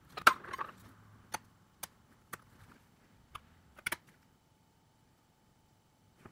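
Sharp clicks and light taps of small tools and parts being handled during a smartphone teardown, about eight in the first four seconds with the first the loudest, then quiet.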